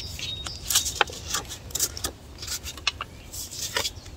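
800-grit wet-or-dry sandpaper being wrapped tight around a wooden block: short, irregular crackles and rustles of paper being pressed and folded by hand.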